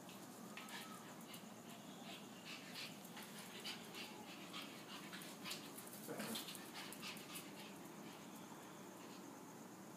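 Dogs snuffling and panting quietly in a quick, irregular run of short sniffs, with one louder breathy snort a little after six seconds.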